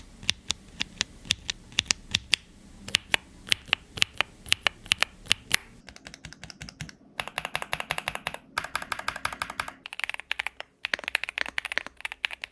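Gateron Zero linear mechanical switches in a YUNZII AL68 keyboard being typed on, fairly loud: separate keystrokes about two a second at first, then fast continuous typing from about halfway through.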